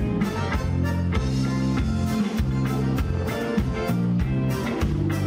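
Live gaúcho regional band playing: accordion with electric bass, drum kit and electric guitar, over a steady beat.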